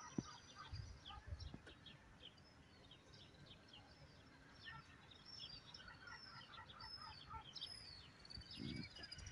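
Small birds chirping, faint: many short high chirps and quick little whistles overlapping throughout, with a few soft low thumps about a second in and near the end.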